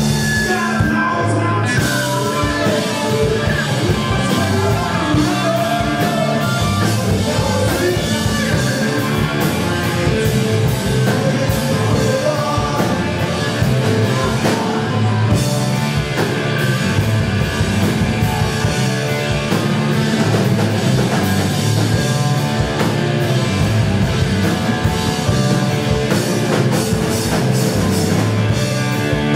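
Live rock band playing a song: electric guitars and a drum kit with sung vocals, loud and continuous.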